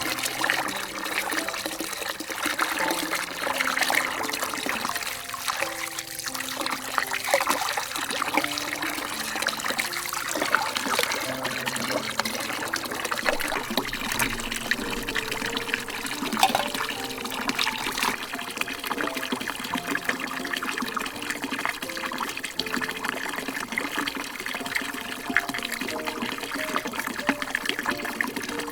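Water trickling and splashing, with a soft instrumental melody under it.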